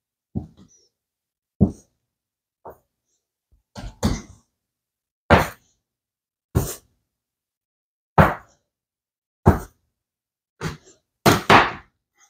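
A series of short thunks on a kitchen counter, about one every second, as bread dough is cut and divided into pieces for rolls.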